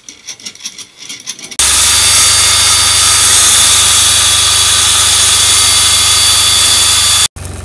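Handheld electric power tool cutting wood, running steadily at full speed. It starts suddenly about a second and a half in and cuts off abruptly near the end. Before it come a few soft clicks.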